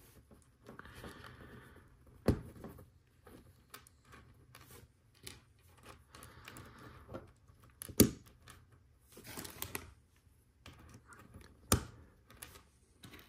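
Small plastic Lego Technic pieces rustle and click as they are handled and pressed together. Three sharp clicks stand out as parts snap into place, about two, eight and twelve seconds in; the one at eight seconds is the loudest.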